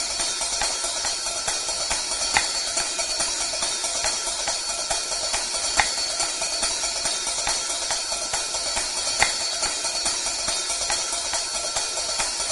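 Background music: a steady shimmering percussion bed, like tambourine or hi-hat, with no vocals.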